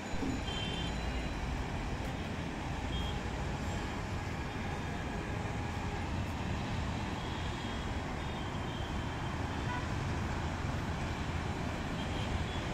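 Steady road traffic noise from a busy multi-lane city road, with brief vehicle horn toots now and then.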